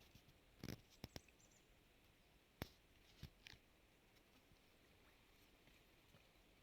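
Near silence broken by a few faint, scattered clicks and soft knocks in the first few seconds: one short scuff, a quick pair of clicks, a sharper tick and two small knocks.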